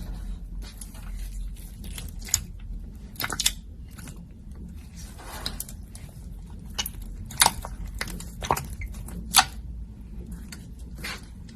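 Slime being squeezed and poked by hand, making irregular crackling pops and squishes, with a few sharper snaps in the second half.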